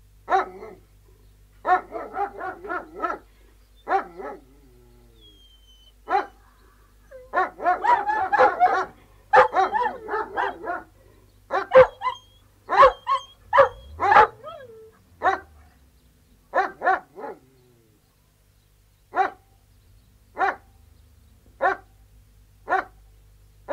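Three Alsatian (German shepherd) guard dogs barking, in quick runs that overlap densely in the middle, thinning to single barks about a second apart near the end.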